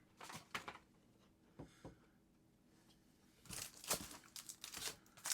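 Light handling noises of a knife's box and packaging: scattered soft taps and rustles, growing busier near the end.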